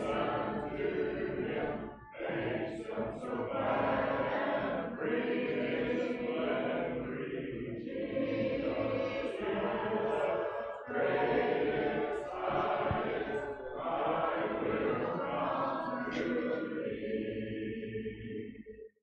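Church congregation singing a hymn unaccompanied, in long sustained phrases with short breaks between them.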